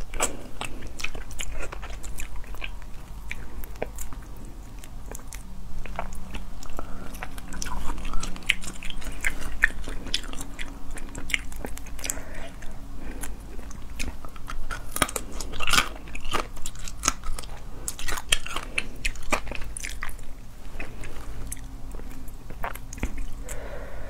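Close-miked biting and chewing of spicy whole shrimp, the shells crunching and cracking in many short sharp clicks.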